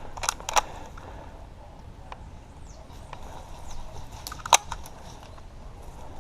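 Scattered airsoft gun shots: a few sharp pops, two close together at the start and the loudest about four and a half seconds in.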